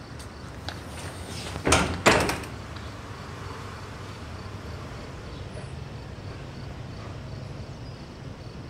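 A building's back door swinging shut: two loud knocks about half a second apart, ringing briefly, over a steady low hum.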